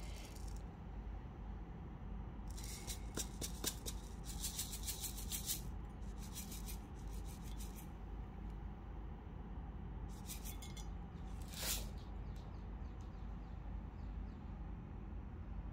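Fish food granules rattling in a plastic jar as it is shaken and tapped out over a goldfish tank, in several short spells of quick clicky rattling.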